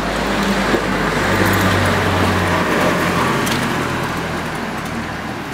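A motor vehicle passing on the street, its engine hum growing a little louder in the first couple of seconds and then slowly fading.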